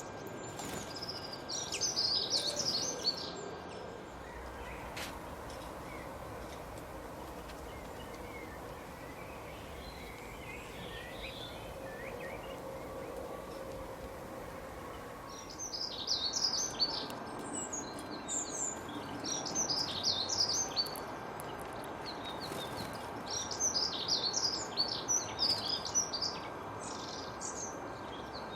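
Small wild birds singing in clusters of quick, high chirps over a steady soft background hiss. The chirping thins out for about ten seconds in the middle, leaving only fainter, lower calls, then comes back in repeated bursts.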